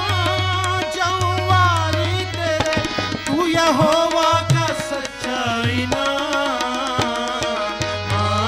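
A man singing a devotional song, accompanied by a harmonium and hand drums playing a steady rhythm.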